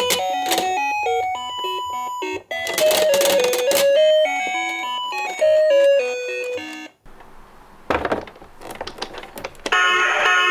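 A bright electronic chime melody, played note by note, that stops abruptly about seven seconds in. A few sharp clicks follow, and a steady electronic tone starts near the end.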